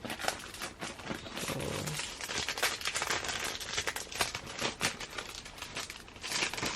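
Packaging crinkling and rustling in quick irregular crackles as a merch item is handled and unwrapped.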